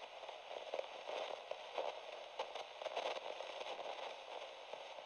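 Faint crackling radio static: a thin, tinny hiss with scattered pops and clicks, like an old radio set between stations.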